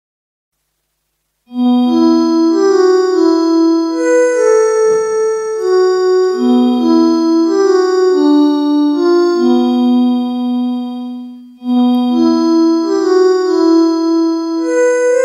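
Background music: a keyboard melody of held notes, starting after about a second and a half of silence and pausing briefly about three quarters of the way through.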